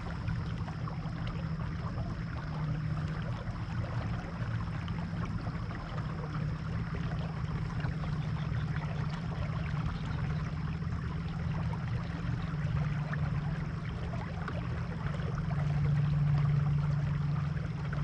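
Boat motor running steadily as the boat moves along, with water washing against the hull; the hum grows a little louder for a couple of seconds near the end.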